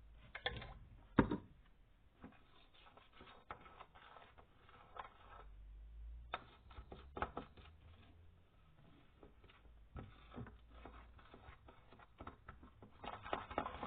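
Spoon stirring and scraping in a bowl, mixing glue with borax activator into slime: irregular small clicks and knocks, the sharpest about a second in.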